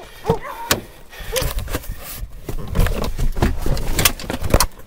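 Clattering knocks, clicks and rustling of someone moving and climbing through, with heavy handling noise, thickest in the second half. A dog barks twice in the first second and a half.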